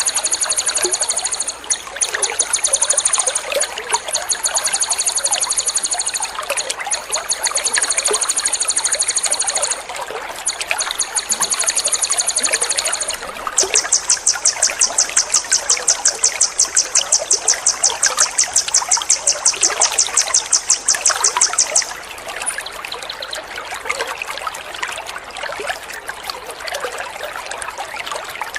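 Water trickling steadily, with a small songbird's rapid, very high trills laid over it: several runs of fast repeated notes, then one long dense trill that stops about two-thirds of the way through, leaving only the trickle.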